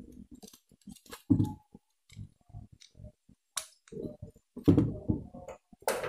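Irregular small clicks and knocks of hard plastic as a twin-tub washing machine's timer selector is handled and seated in its plastic mounting on the control panel, ready to be screwed down. The knocks are a little louder about a second in and near the end.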